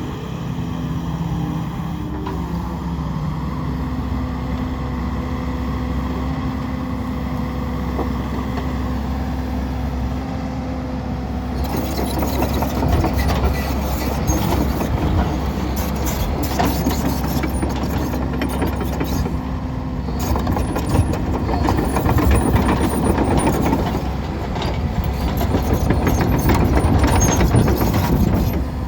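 Sany SY135C excavator's Isuzu diesel engine running with a steady hum; about twelve seconds in the sound turns louder and noisier, with rattling and clanking, as the machine moves before being parked.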